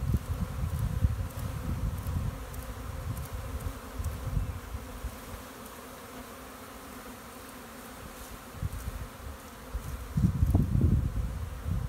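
A mass of honeybees humming steadily as a package of bees is shaken out into a hive. Low rumbling bumps are louder in the first couple of seconds and again near the end.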